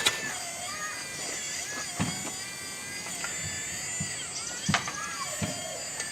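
Electric hydraulic pump of a 1/16-scale RC Caterpillar 385 CL excavator whining, its pitch rising and falling as the machine works under load. A few sharp knocks come about 2 seconds in and again near 5 seconds.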